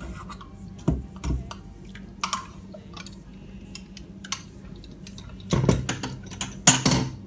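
Stainless-steel spätzle press clinking and knocking against a steel pot as dough is pressed through it, with scattered metal knocks and two louder bursts of clatter near the end. A steady low hum runs underneath.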